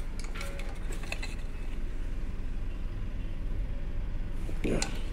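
Small socket ratchet worked on the centre bolt of the compressor motor's plastic cooling fan: a cluster of metallic clicks and clinks about half a second to a second in. A short louder sound comes near the end.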